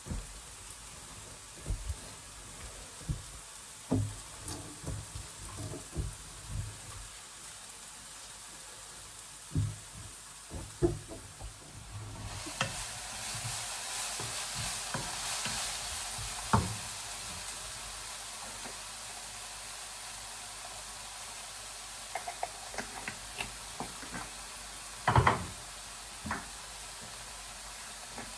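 Kitchen cooking sounds: light knocks and clatter of utensils, then about twelve seconds in a hot pan starts to sizzle and slowly dies down, with a few more light clicks and a sharper knock near the end.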